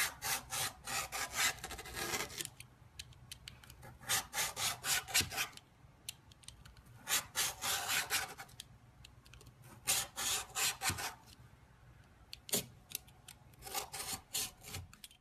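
Rapid scraping strokes in five short bursts of one to two seconds each, with brief pauses between them.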